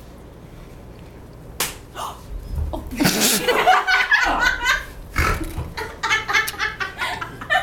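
A single sharp smack of a stage-fight slap about one and a half seconds in, then a loud breathy gasp about three seconds in, followed by people laughing in quick repeated bursts.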